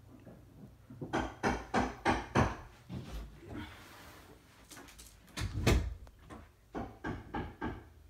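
A quick run of sharp knocks, about three a second, then a few heavier thumps and more knocks later on, over a faint steady low hum.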